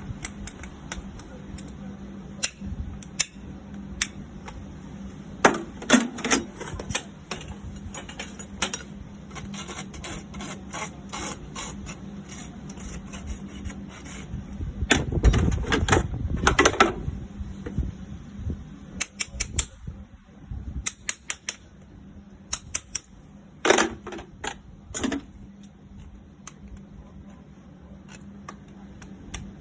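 Farrier's hammer tapping on a freshly shod horse's hoof, working the nail ends over into clenches. The taps come sharp and irregular, with a louder, fuller stretch of blows about halfway.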